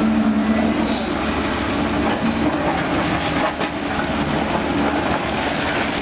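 Caterpillar 320D2 hydraulic excavator travelling on its steel crawler tracks: a steady clanking rattle of the track links over the running diesel engine and hydraulics.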